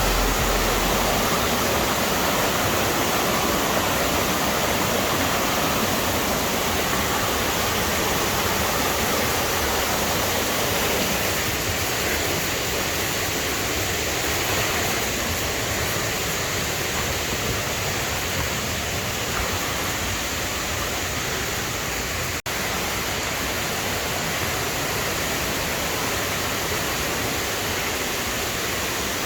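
Kuwanoki Falls waterfall rushing: a loud, steady roar of falling water, with a split-second dropout about 22 seconds in.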